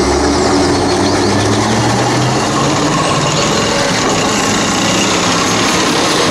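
Leclerc main battle tank driving past on a paved road: its heavy engine running steadily under the dense metallic clatter of its steel tracks.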